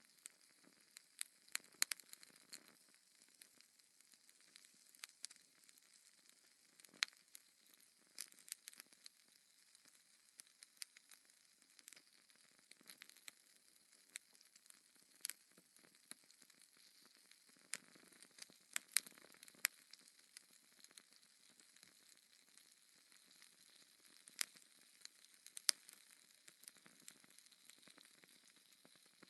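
Burning logs in a fireplace crackling quietly: irregular sharp pops and snaps, a few a second, over a faint steady hiss.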